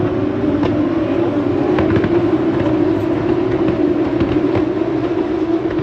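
A bunched pack of Formula 2 race cars passing at high revs: a loud, dense, steady drone of many engines together.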